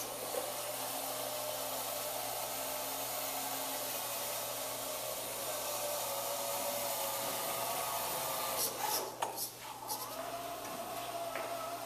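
Small DC gear motors of a student-built robot vehicle whirring with a faint wavering whine as it drives across a tile floor. A few quick clicks and knocks about nine seconds in.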